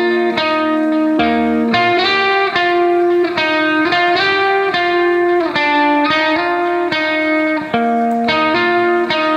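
Instrumental background music: a melody of distinct notes with sharp starts, changing roughly every half second.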